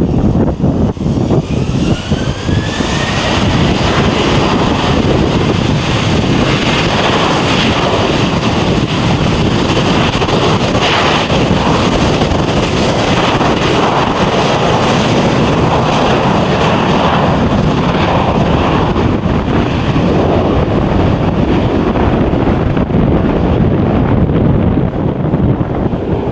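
Jet airliner engines running loud, with a whine that rises in pitch over the first few seconds as the engines spool up, then holds steady under a heavy roar.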